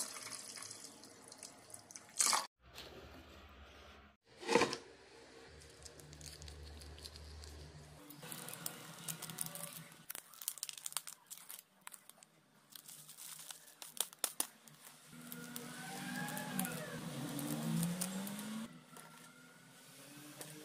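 Water poured into a steel bowl of rice at the start, then a series of sharp knocks and clicky handling sounds, with a few faint gliding tones near the end.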